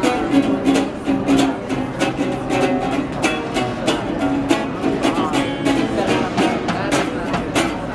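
Acoustic band music: strummed string instruments keep a steady rhythm under held melody notes.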